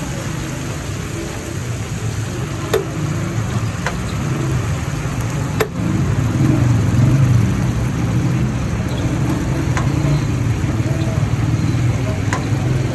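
Oil and spice masala sizzling on a large iron tawa over a steady low rumble. A few sharp clicks are heard, and a little over halfway through the sizzle gets louder as cooked kidney beans are added to the hot oil.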